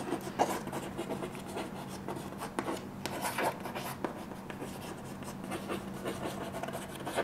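Chalk writing on a chalkboard: a run of short, irregular scratching and tapping strokes as the words are written.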